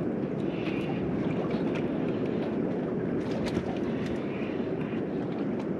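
Steady low rumble of the boat's outboard motor running at idle, with a few faint light ticks as a fishing reel is cranked against a heavy fish.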